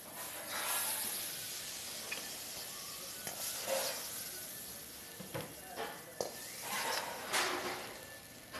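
Freshly tossed chilli chicken being served hot from the pan onto a plate: sizzling, with a metal ladle scraping and a few short knocks.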